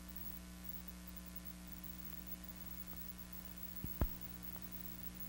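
Steady hum and hiss of an old film soundtrack with no program sound on it, as the film runs out. Two pops about four seconds in, the second louder.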